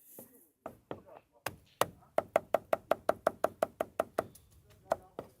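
Cleaver chopping meat on a chopping block: a fast, even run of strikes, about six a second, with a few slower strikes before and after.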